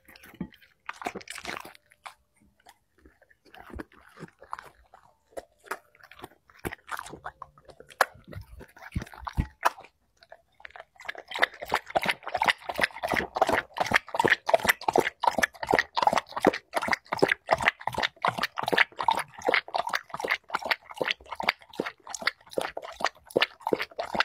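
A black Labrador eating, close up: scattered crunches and chewing at first, then from about eleven seconds in a fast, steady run of wet lapping strokes, about four a second, as it laps a soupy food from a bowl.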